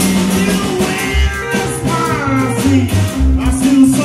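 Live rock band playing, with electric guitar and a bending lead melody over a steady bass and beat.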